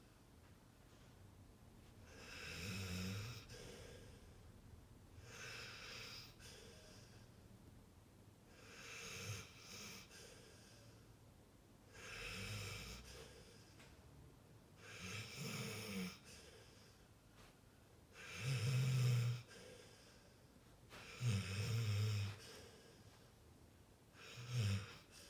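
Sleeping pit bull snoring, one snore about every three seconds, the snores growing louder toward the end.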